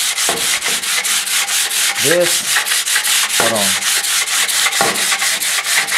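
A sheet of sandpaper rubbed by hand over a wooden board in quick back-and-forth strokes, about five a second, a steady rasping hiss that smooths the wood's surface before painting.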